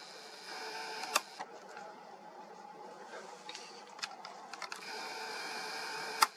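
A small motor whirring in two stretches, with several sharp clicks; the loudest click comes near the end, just as the second whir stops.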